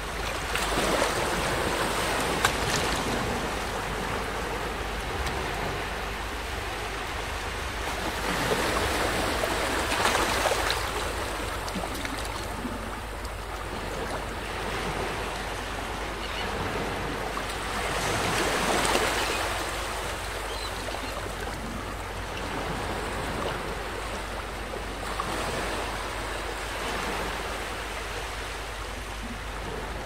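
Small waves washing up and draining back over a sandy beach, a steady rush of water that swells as each wave comes in, most strongly about nine seconds in and again near nineteen seconds.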